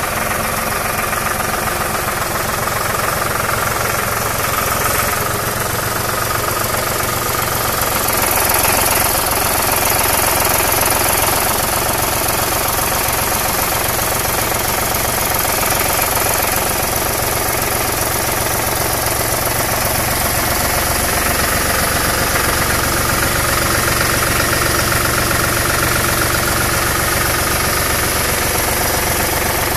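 Tractor diesel engine running steadily while the front loader's hydraulics raise and tilt a bale fork. It gets a little louder around eight to eleven seconds in.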